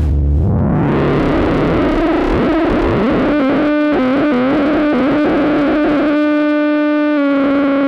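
Eurorack modular synthesizer: a Weston TZO thru-zero oscillator through Steve's MS-22, an MS-20-style filter, making a dense, distorted, noisy texture. About three seconds in it settles into a buzzy sustained tone that wobbles in pitch a few times, then holds a steady note.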